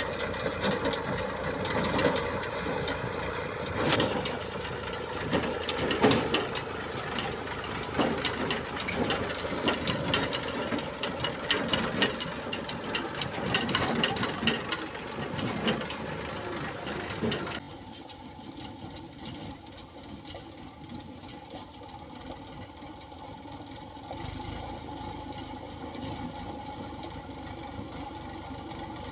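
Diesel engine of a backhoe loader at work, with frequent metallic clatter and knocks over the engine. About two-thirds of the way through, the sound cuts suddenly to a quieter, steady engine running.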